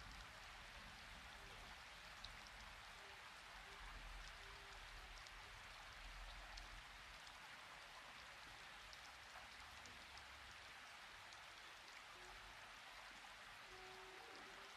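Near silence: a faint, steady hiss of room tone with a few tiny ticks.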